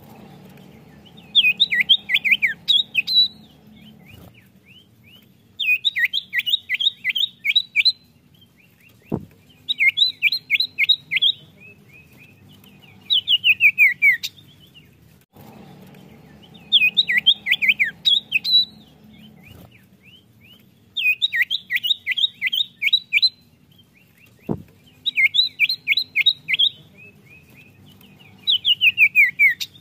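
Common iora (cipoh) song: short runs of rapid sweeping whistled notes and a falling whistled phrase. The same sequence repeats about every 15 seconds, as in a looped lure ('pancingan') recording. A sharp click comes twice.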